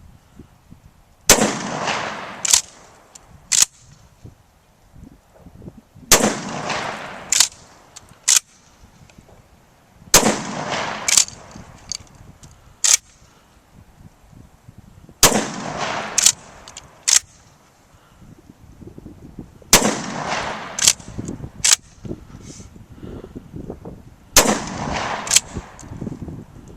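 Gunfire in six groups, about every four and a half seconds: each group opens with a loud report that rolls on with a long echo, followed by two sharper cracks about a second apart.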